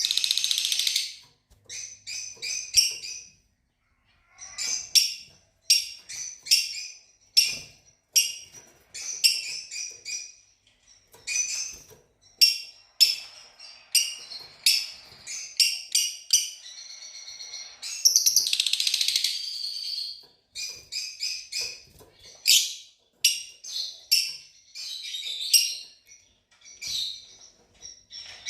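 Fischer's lovebirds chirping: a run of shrill, high-pitched chirps in quick clusters, with a longer harsh call at the start and another about two-thirds of the way through.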